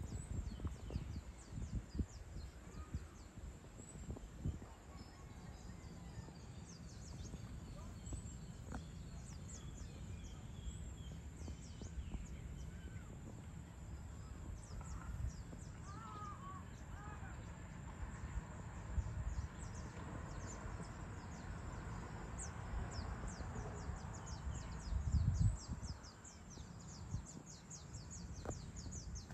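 Outdoor evening ambience: many small birds chirping in quick high notes, more of them toward the end, over a steady low rumble that swells briefly louder near the end.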